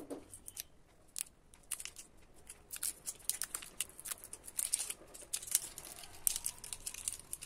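Thin plastic packaging on a new lipstick crinkling and tearing as it is peeled off by hand, with small sharp clicks. The crinkling gets busier about halfway through.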